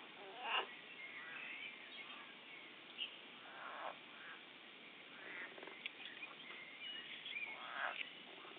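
Frogs croaking: several short croaks a second or two apart, with fainter, higher chirps between them.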